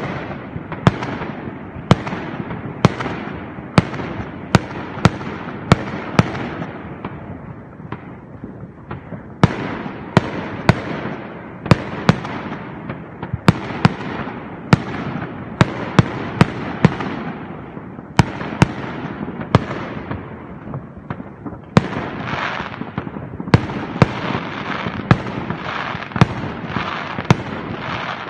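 Aerial fireworks going off in a long volley: sharp bangs every half second to a second, each trailing off in echo. Dense crackling takes over from about three quarters of the way through.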